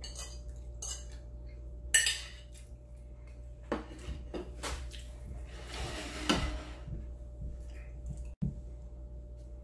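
Metal fork clinking and scraping on an empty plate, with a loud clatter about two seconds in as the plate and fork are handled and set down, a few lighter knocks after it, then a rustle of cloth as a napkin is handled.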